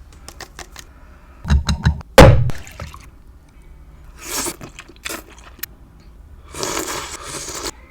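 Close-miked handling of a bowl of Buldak ramen and its utensils. There are a few light clicks, then a run of thumps about a second and a half in, with the loudest knock just after two seconds. Two longer noisy stretches of food being moved follow, one near the middle and one near the end.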